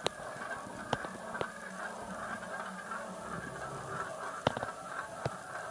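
Marbles rolling down a plastic Galt marble run: a faint steady rolling rattle with about five sharp clicks as they strike the track pieces.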